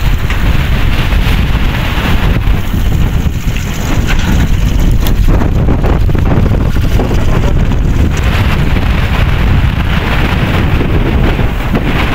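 Strong dust-storm wind blasting across the microphone, loud and steady, with a deep rumble.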